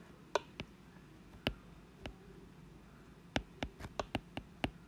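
Stylus clicking on a tablet screen during handwriting: a few scattered clicks, then a quick run of about eight near the end, over a faint steady room hum.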